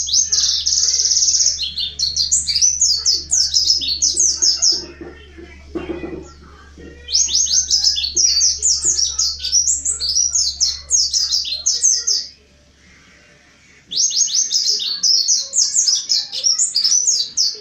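Mountain white-eye (Zosterops montanus) singing in three long bursts of rapid, high, falling chirps, with short pauses between them. This is the loud, non-stop song used as a lure to set other white-eyes singing.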